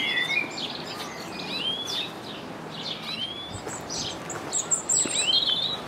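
Small birds chirping and singing: a scatter of short whistled notes, many rising quickly, over a steady faint background hiss.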